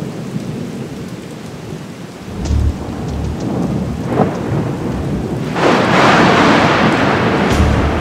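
Thunderstorm: steady rain with thunder rumbling low, one rumble about two and a half seconds in, and the storm growing louder from about five and a half seconds in.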